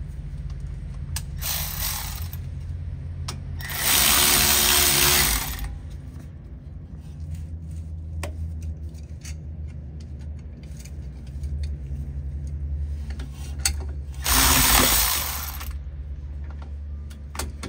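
Cordless power tool fitted with a 13 mm socket, running brake hardware bolts in two bursts of about a second and a half each, with scattered clicks and taps of tools between them.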